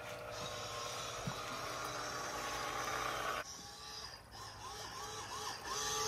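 A small motor whirring steadily, cutting off suddenly after about three and a half seconds.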